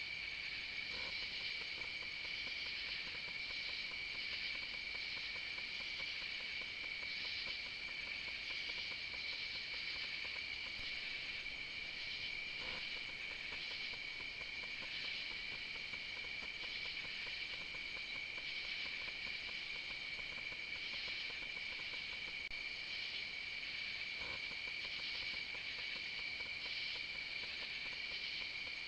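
Night insect chorus of crickets: a steady high trill with a pulsing, rasping layer above it.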